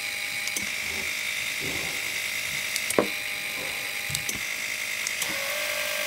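Plastic bags crinkling and light clicks as small key-fob remotes in their bags are handled, with one sharper click about three seconds in, over a steady hiss.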